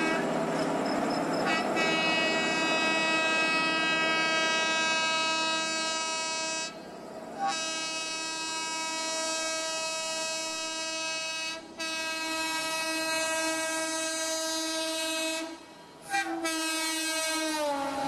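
Locomotive air horn sounded in long, steady blasts broken three brief times as a train approaches at speed. In the last two seconds the horn's pitch drops as the locomotive passes close by.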